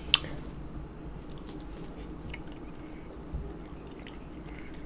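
A person chewing a bite of hard-boiled egg close to the microphone: soft, wet mouth sounds with small scattered clicks, and one sharper click just after the start.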